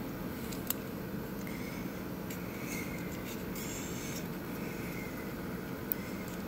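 Small plastic computer-fan parts being handled: two sharp clicks, one near the start and one near the end, with light scraping and rubbing in between, over a steady background hum.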